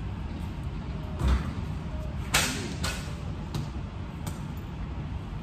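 A basketball bounced once on a hard floor with a deep thump, then, about a second later, a louder bang with a short ring as the thrown ball hits the hoop. A few lighter knocks follow, over a steady low hum of store noise.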